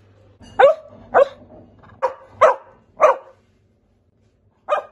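Cocker spaniel barking: five quick barks in the first three seconds, then one more near the end.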